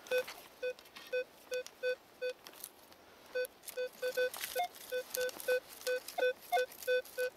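Metal detector beeping in short, even tones, two to three a second with a brief pause about a third of the way in; a few beeps sound a step higher. It is sounding on buried metal targets, here more coins from a scattered purse.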